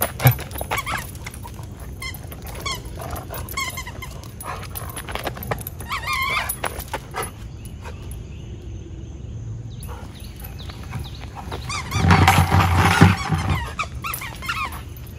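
Dog giving short, excited whines and yelps while playing tug, with a louder, longer burst of vocalising about twelve seconds in.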